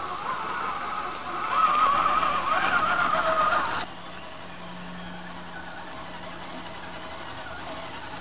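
The electric motor and gearbox of a 1:10 scale RC crawler truck whine as it climbs over roots, wavering in pitch with the throttle and getting louder about a second and a half in. The sound cuts off abruptly about four seconds in, and a fainter, steadier whine follows.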